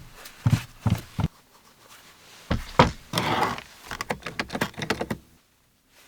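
Starter motor and solenoid parts being handled during disassembly: four knocks in the first second or so, then a scraping rattle and a quick run of small clicks that stops about a second before the end.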